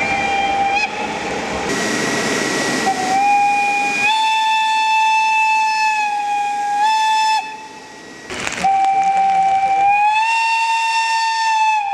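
Electric locomotive air whistles sounding long, steady, single-pitched blasts. One starts about three seconds in and lasts some four seconds, its pitch stepping up slightly and back. After a brief break another starts about nine seconds in, rising a little in pitch. A steady hiss and rumble fill the first few seconds.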